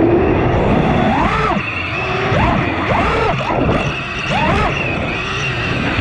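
Armattan Marmotte FPV quadcopter's brushless motors whining, the pitch repeatedly rising and falling as the throttle is worked, over a steady rush of wind and propwash.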